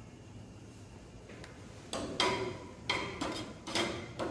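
Metal kitchen tongs clinking against a frying pan: about half a dozen sharp clinks, each with a brief metallic ring, starting about a second and a half in.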